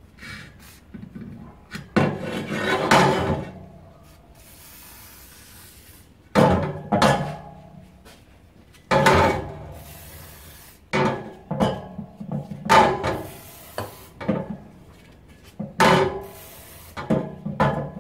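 Short bursts of an aerosol spray being applied around the spoke nipples of a motorcycle's spoked wheel, about half a dozen sudden bursts that each fade over about a second, with knocks and rubbing as the wheel and can are handled between them.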